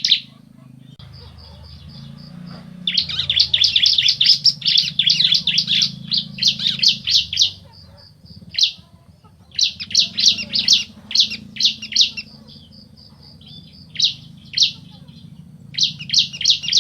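Ciblek (prinia) male and female calling back and forth in loud bursts of rapid, sharp, high chirps. Between the bursts there is a thinner, quieter high trill, and a low steady hum runs underneath.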